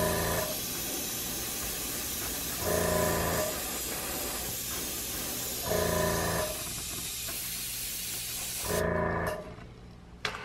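Airbrush spraying paint: a steady hiss of air that stops about nine seconds in. A short tone of several notes sounds about every three seconds over it, and a few light clicks follow near the end.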